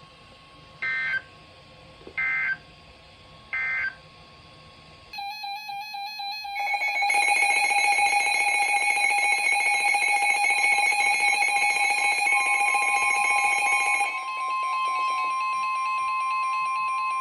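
Emergency Alert System signal: three short warbling data bursts of the digital SAME header about a second and a half apart, then a loud, harsh electronic attention tone. About fourteen seconds in it changes to a single steady tone that runs on.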